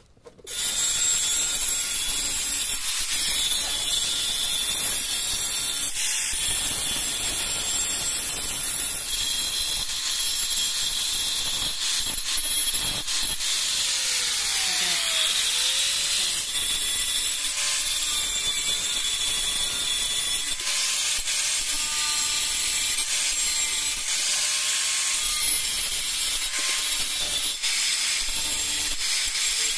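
Angle grinder with a sanding disc running against the cut edge of a black tile, grinding the edge smooth. A steady, high-pitched grinding hiss with a faint motor whine, starting about half a second in.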